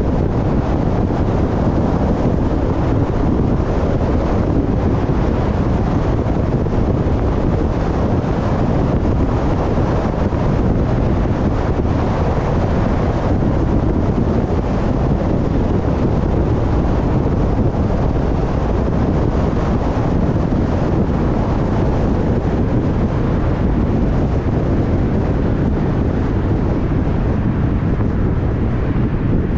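Steady road and wind noise of a car driving in traffic, with wind rumbling on the microphone.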